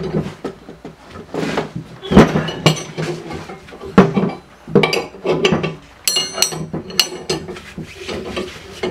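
Irregular metallic clinks and clanks of a hand wrench working the screw of a C-frame press as a bushing is pressed into a lower control arm. A few of the strikes ring briefly about six to seven seconds in.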